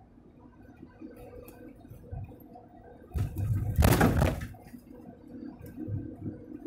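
Delivery truck cab interior while driving: low road-and-engine rumble with a faint steady hum, broken about three seconds in by a loud rattling noise lasting about a second and a half.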